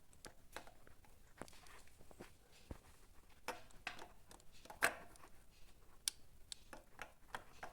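Faint, irregular clicks and knocks of a Honda CG Fan 160 camshaft rocked by hand in the open cylinder head. The knocking comes from the worn camshaft bearing, which has excessive up-and-down play. The sharpest click falls about five seconds in.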